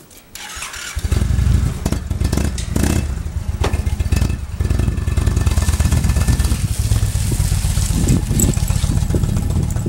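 Indian Chieftain motorcycle's V-twin engine starting about a second in and then running with a low, pulsing beat as the bike pulls away.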